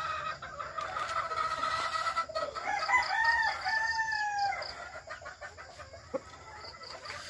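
Gamefowl roosters crowing: one long, slightly falling crow fades out in the first two seconds or so, then another crow of several arched notes follows about three seconds in. A single short tap comes near the end.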